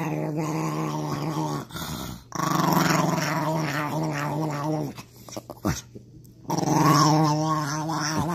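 A small white Chihuahua-type dog growling and grumbling in three long, drawn-out vocal runs that waver in pitch, with short pauses between them.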